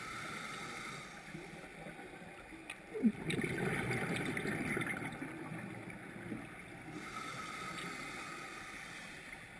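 Underwater camera audio: a scuba diver's exhaled bubbles gurgling through the water from about three seconds in, over a low steady hiss.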